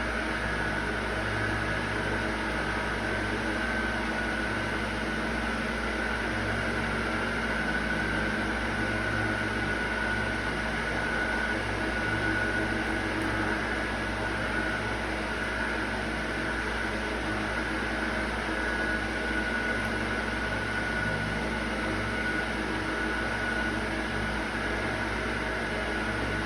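Steady mechanical hum with a thin high whine held throughout, like a running fan or motor.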